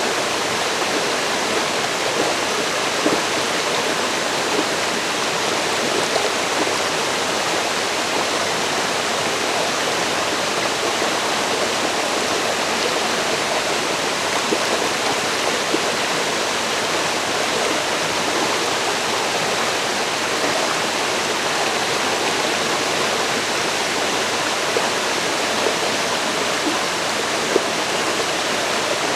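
River water rushing and splashing over rocks, a steady even rush of flowing water.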